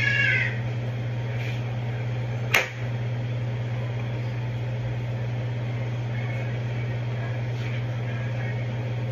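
Steady low electric fan hum. One sharp click comes about two and a half seconds in.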